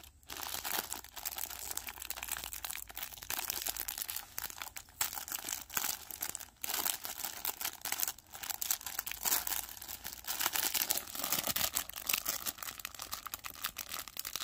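Parcel packaging crinkling and rustling as it is unwrapped by hand, in a long run of irregular crackles.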